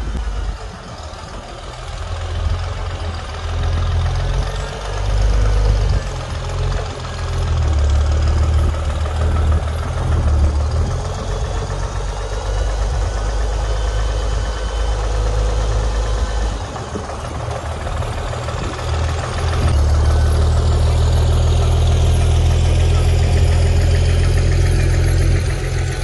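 Farmall 756 tractor's six-cylinder engine running as the tractor drives out and past, its level rising and falling through the first half, dipping for a couple of seconds after the middle, then running steady and louder in the last few seconds.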